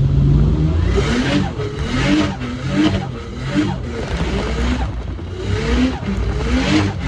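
Turbocharged Ford Barra 4.0-litre straight-six with a Pulsar turbo, revved in quick repeated blips about once a second, each rev climbing and dropping back. A burst of hiss comes with each rev.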